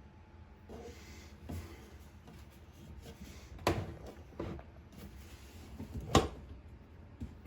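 Several sharp knocks and clunks of drain pipe parts and the sink cabinet being handled, the loudest about six seconds in.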